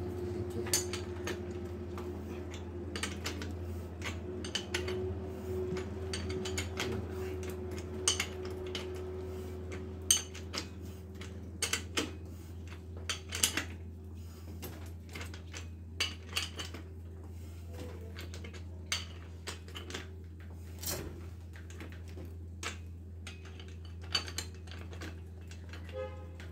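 Metal tools clinking and knocking against a bicycle's bottom bracket and crank as it is worked on by hand: scattered sharp metallic clicks, thickest in the middle, over a steady low hum.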